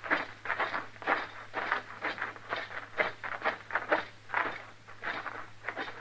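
Radio-drama footsteps effect: footsteps walking over rough ground, about two steps a second. A faint steady hum from the old recording lies underneath.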